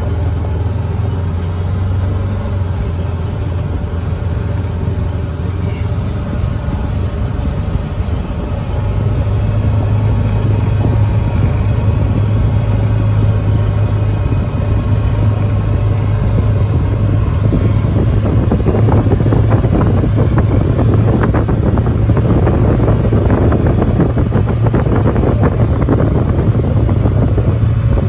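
A farm utility vehicle's engine running steadily as it drives, with a low drone. About two-thirds of the way in, rattling and clattering from the ride over rough ground join it.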